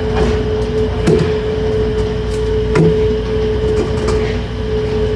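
A steady machine hum at one pitch over a low rumble, with two light knocks about one and three seconds in.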